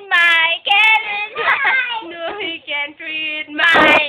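A young child singing in a high voice, with short held notes that slide in pitch and no clear words. A brief loud, noisy burst comes near the end.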